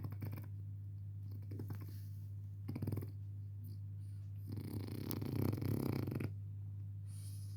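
French bulldog puppy snoring in his sleep: short snores at the start and about three seconds in, then a longer, louder snore of nearly two seconds just past the middle, over a steady low hum.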